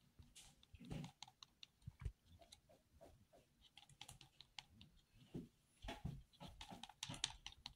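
Faint, irregular light clicks and soft rustles from a paper sketchbook being handled, its pages held and shifted.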